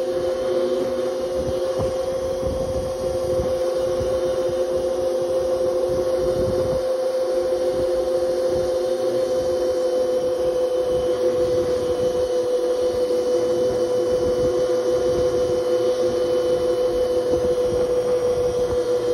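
Razor electric dirt bike riding at a steady speed, its motor and drive giving a constant whine that holds one pitch, over an uneven low rumble of wind on the microphone.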